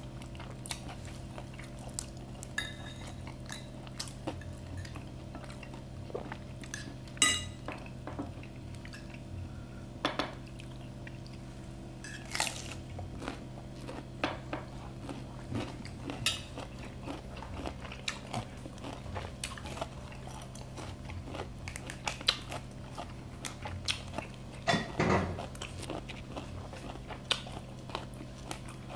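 Close-up eating sounds: a spoon clinking and scraping on plates and bowls, with scattered small clicks and chewing, over a steady low hum.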